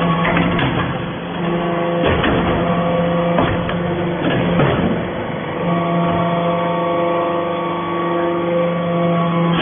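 Hydraulic copper-chip briquetting press running: a steady motor-and-pump hum whose pitch pattern shifts as the press works, with several short knocks from the press.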